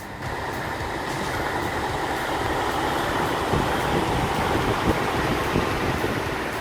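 Heavy machinery running with a steady mechanical noise.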